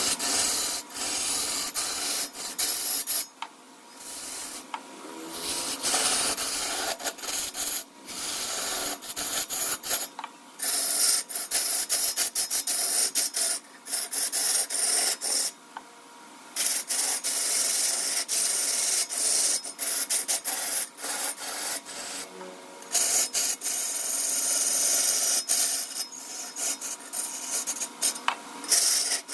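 Wood being worked on a lathe: a continuous rasping of a tool or abrasive against the spinning wood, breaking off briefly about five times.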